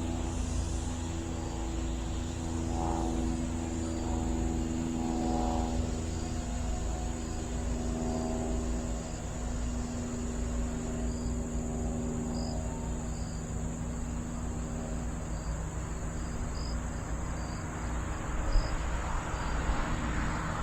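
Micro electric RC plane's motor and propeller buzzing in flight, its pitch wavering as the throttle and wind load change, with wind rumbling on the microphone. Crickets trill and chirp steadily in the background.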